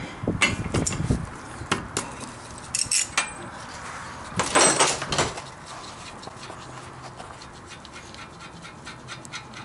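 Socket ratchet clicking and metal clinks as the 27 mm spindle nut is spun off the front wheel hub, with a louder short sound about halfway through.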